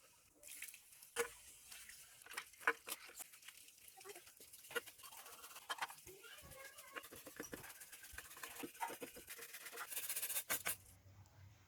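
Irregular small metallic clicks and taps from hand work on the parts of a rusty padlock. A denser burst of scraping comes near the end.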